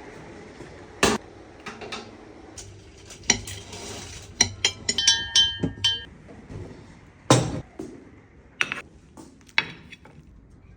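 Kitchen clatter: dishes and glassware clinking and knocking as they are handled. A quick run of ringing clinks comes about halfway through, followed by a few sharp knocks, the loudest shortly after.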